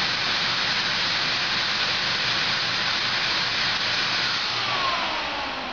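Automatic business card cutting machine running with a steady rushing hiss from its motor and air blower. Near the end it begins to wind down with a falling whine.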